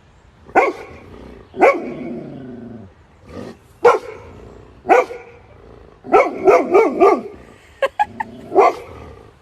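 Dog barking about ten times at irregular intervals, with a quick run of barks about six seconds in.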